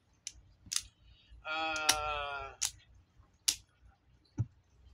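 A man's drawn-out hesitation sound, a held "uhh" of about a second in the middle, among half a dozen sharp clicks.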